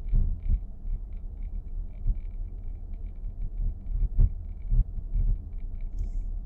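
Dashboard of a 2023 Nissan X-Trail e-POWER rattling and ticking over a steady low road rumble inside the cabin: irregular small clicks, a few each second, with one sharper knock about four seconds in. This is the abnormal dashboard noise being documented.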